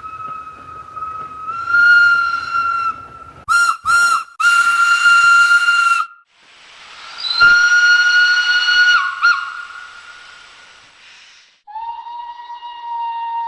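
A series of steam locomotive whistles. A steady high whistle is followed by two short toots and a longer blast, then a hissing whistle that dips briefly in pitch, and a lower-pitched whistle begins near the end.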